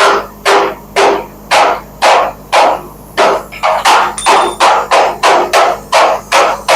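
Hammer pounding on steel, a steady series of ringing blows about two a second that quickens to about three a second around halfway.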